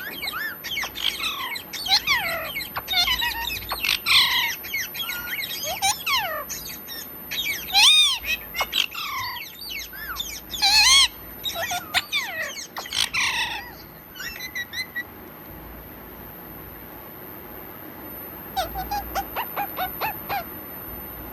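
Pet parrot squawking and chattering in quick calls that swoop up and down in pitch for about fourteen seconds. After a short lull comes a rapid run of short chirps near the end.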